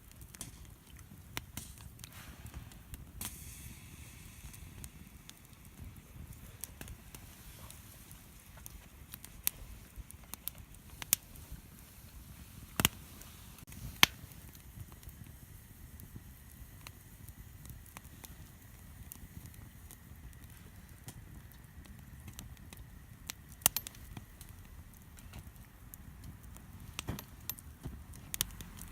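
Wood campfire crackling, with irregular sharp pops scattered throughout, a few of them much louder than the rest.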